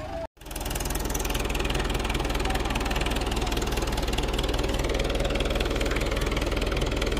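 Mahindra tractor's diesel engine running steadily, with an even, knocking firing beat. The sound cuts out completely for a moment just after the start.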